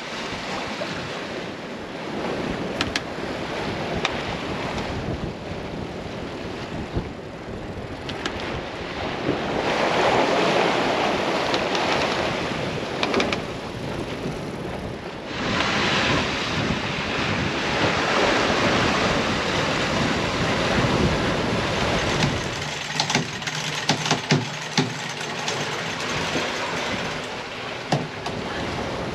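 Sea rushing along the hull of a sailing yacht under way, with wind buffeting the microphone; the rush grows louder and fainter. Near the end a short run of sharp clicks and knocks.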